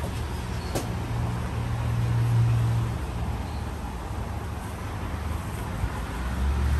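Road traffic: a vehicle engine's low hum that swells and fades, over a steady noise of the street, with one sharp click a little under a second in.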